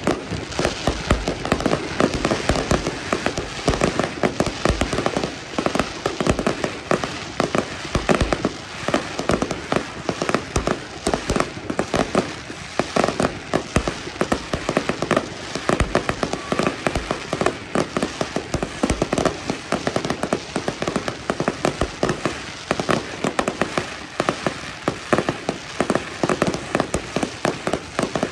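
Fireworks display: aerial shells and ground-fired batteries going off in a dense, unbroken run of bangs and crackling, many reports a second with no pause.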